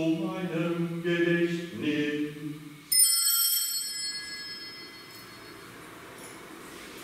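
A man chanting in German on long held notes, then, about three seconds in, a single strike of a small altar bell (sanctus bell) that rings out high and clear and fades away over about two seconds, marking the elevation at the consecration.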